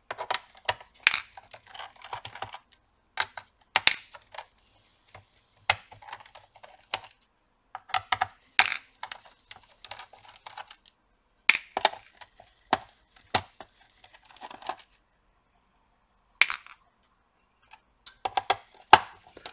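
Small steel screws and a screwdriver clicking and clattering against a laptop's plastic bottom cover as the back-cover screws are taken out, with soft handling rustle between. There are about a dozen irregular sharp clicks, some in quick pairs, with two short quiet spells in the last few seconds.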